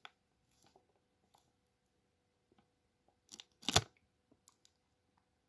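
Trading cards being handled: faint scattered ticks of card edges, then two short, sharp card snaps a little over three seconds in, the second one the loudest.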